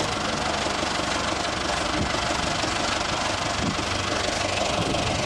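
Diesel engine of a backhoe loader idling steadily.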